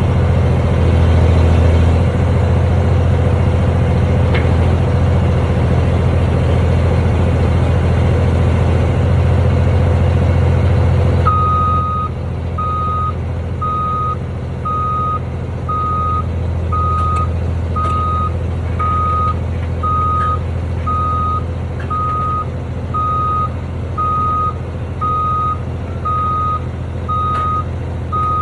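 Diesel engine of a piece of heavy construction equipment running steadily. About a third of the way in the engine sound drops, and a reversing alarm starts beeping evenly over it, about one and a half beeps a second.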